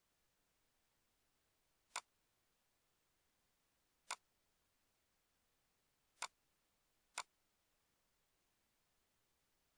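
Four sharp computer mouse clicks, about two seconds apart and then the last two a second apart, over near silence.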